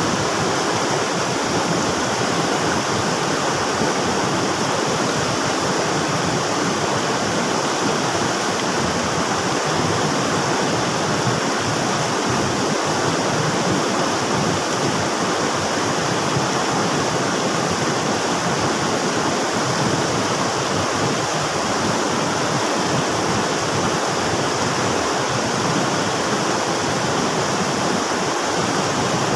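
River water rushing steadily, a constant loud splashing flow without pauses.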